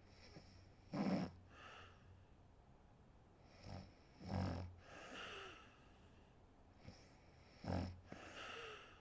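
A woman snoring in her sleep: three snores about three seconds apart, each followed by a softer, breathy exhale.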